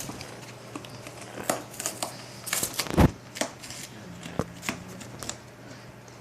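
Yellow-naped Amazon parrot tearing and chewing cardboard with its beak: irregular crunches and snaps, with one heavier thump about three seconds in.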